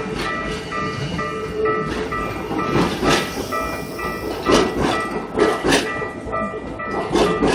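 A Keikyu train passing over a level crossing, its wheels knocking sharply over the rail joints several times. Under it the crossing's warning bell rings, a steady repeating electronic tone.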